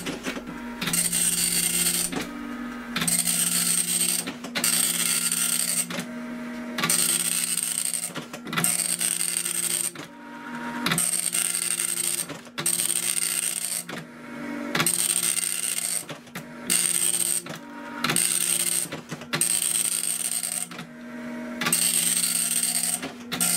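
Dot matrix printer printing in near letter quality mode: the print head buzzes across the paper in a steady series of passes, each about a second long, with short pauses between them as the head goes over each line twice and the paper advances.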